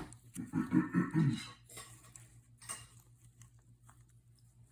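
Metal pedal parts of an Ironrite ironer being twisted into position by hand: a short pitched creak-like sound early on, then a few light clicks and knocks of metal on metal.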